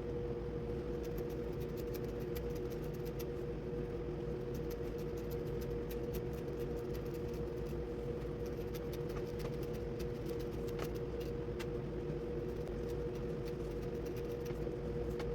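Steady mechanical hum with a constant pitched tone, unchanging throughout, with faint light clicks scattered over it.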